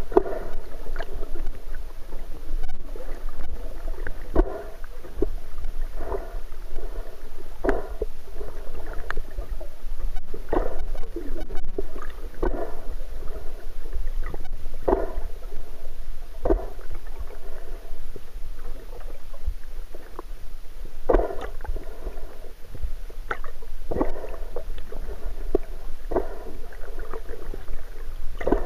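Muffled underwater sound picked up by a submerged camera: water swishing and bubbling in irregular surges about once a second, over a constant low rumble.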